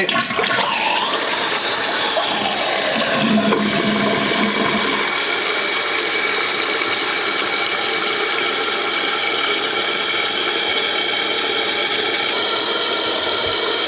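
Toilet flushing, then the newly installed fill valve refilling the tank: a steady, loud hissing rush of water with a thin whine over it.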